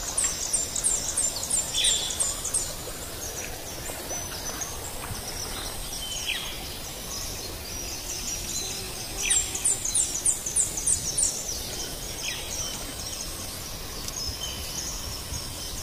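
A bird singing a quick run of about seven high, down-slurred notes, twice: once at the start and again about nine seconds in, with other short downward chirps scattered between. Under it there is a steady outdoor hiss, with a faint high insect-like tone in the first half.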